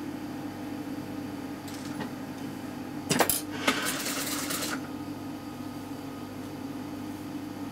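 Steady low hum of a Toyota industrial sewing machine standing ready. About three seconds in there is a quick clatter of sharp metallic clicks, then about a second of cloth rustling as the fabric is set under the presser foot.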